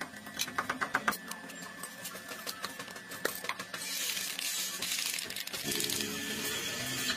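Small metal parts clinking and tapping several times, then an aerosol spray can hissing steadily for about three seconds.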